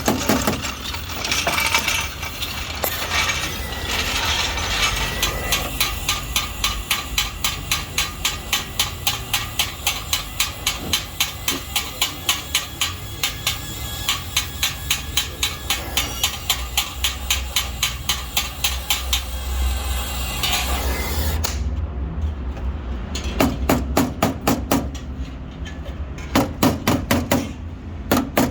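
Steady, rapid hammering, about three or four blows a second, breaking into short bursts in the last several seconds.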